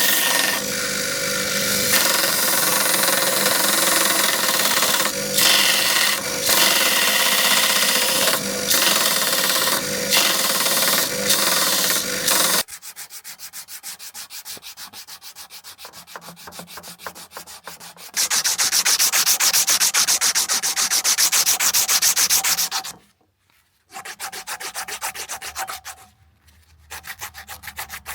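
Sanding a steel knife blade. For the first half a power tool grinds or sands against the steel with a steady whine. Then, after a sudden change, fast, even rubbing strokes follow, louder for a few seconds in the middle and broken by two short pauses.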